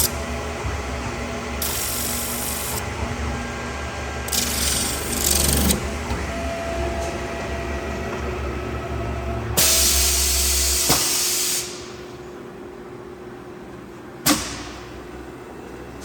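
CNC metal spinning lathe running, with a steady low hum and repeated bursts of hissing, the longest and loudest shortly before the machine quietens about twelve seconds in. A sharp click with a short hiss follows a couple of seconds later.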